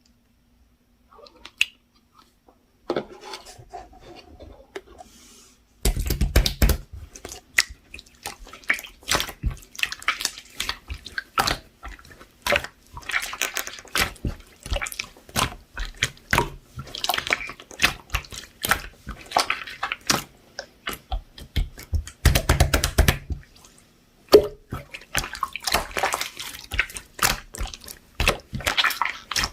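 Hands kneading and pressing a chewy slime: a dense run of wet clicks, pops and squelches. It starts sparse and soft, then turns dense about six seconds in, with two louder, deeper squelches about six and twenty-two seconds in.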